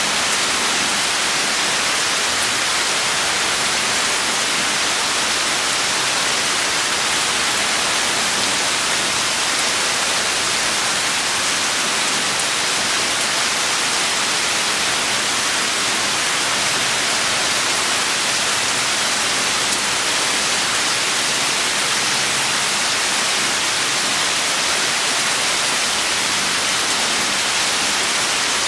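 Steady, dense rain: a continuous even hiss of rainfall without separate drops standing out, holding at the same level throughout.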